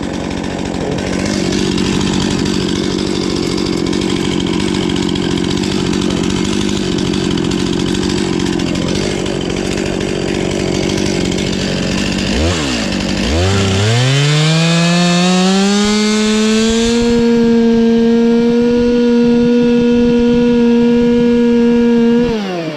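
Chainsaw milling a log, running at full throttle in the cut. About halfway through, the pitch dips, then climbs to a steady, higher, clearer tone, which falls away just before the end.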